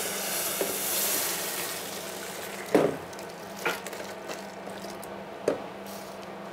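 Hot turnip and cream soup poured from a stainless steel saucepan into a plastic blender jar, a splashing hiss over the first couple of seconds. Then three sharp knocks as the last of it is scraped and tapped out of the pan with a spatula.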